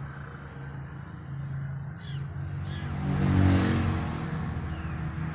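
A motor vehicle's engine running over a steady low hum, swelling to its loudest about three and a half seconds in. A kitten gives a couple of short, high, falling mews about two seconds in.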